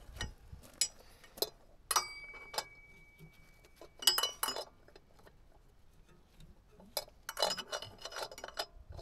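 Metal tools clinking and tapping against metal parts in an excavator engine bay, in scattered single knocks and quick clusters. One strike about two seconds in rings on briefly as a thin metallic tone.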